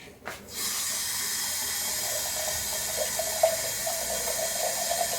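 Water running into a glass tumbler, starting about half a second in as a steady splashing hiss with a ringing note from the glass as it fills.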